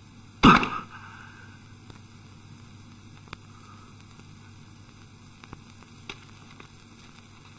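Steady hiss and low hum of an old film soundtrack. A short, loud sound comes about half a second in, and a few faint ticks follow later.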